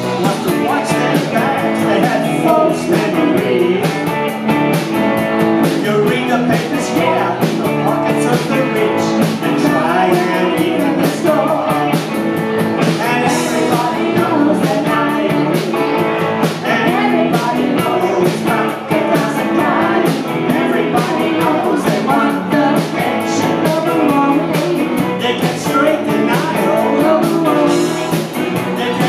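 Live rock band playing a bluesy rock song: a woman singing over electric guitars and a drum kit.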